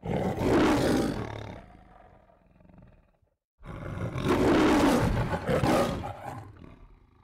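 Lion roaring twice, in the style of the MGM logo roar: a first roar that fades away over a couple of seconds, then a second, longer roar starting about three and a half seconds in.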